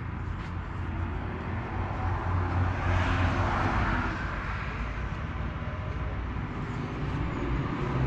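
A steady low engine hum, with a rushing noise that swells and fades about three to four seconds in.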